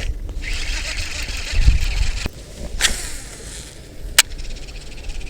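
Strong wind buffeting the microphone in a steady low rumble, over a high background chirring. There are two sharp clicks, one at about three seconds and one at about four seconds.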